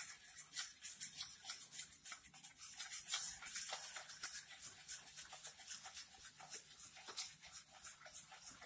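Wire whisk beating a liquid mix of ghee and milk in a stainless steel bowl. The wires tick and scrape lightly against the steel in a quick, even run of strokes, several a second.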